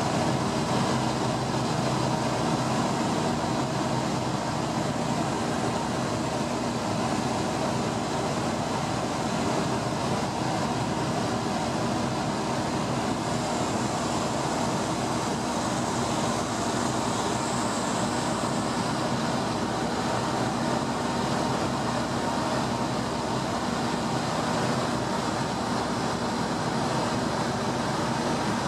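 Inside the cockpit of an ultralight aircraft in cruise: the engine and propeller drone steadily, with a constant hiss of airflow over the canopy.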